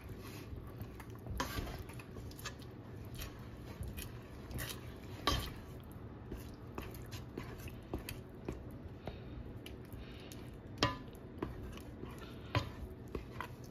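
A cooking spoon stirring melting cheese sauce in a stainless steel pot, scraping and clicking irregularly against the pot's bottom and sides, with a few sharper knocks about five and eleven seconds in.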